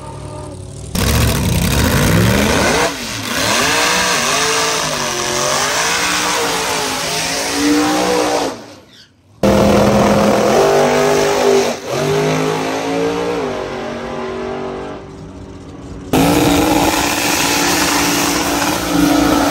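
Drag race car engines revving hard, their pitch repeatedly climbing and falling, heard in several short clips cut together with a brief drop-out in the middle.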